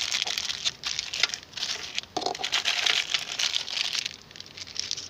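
Clear plastic packaging being crumpled and crinkled in the hand, an irregular crackling rustle.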